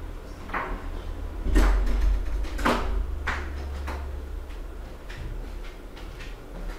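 A series of short knocks and clicks over a low steady hum, the two loudest knocks about one and a half and two and a half seconds in, with fainter clicks afterwards.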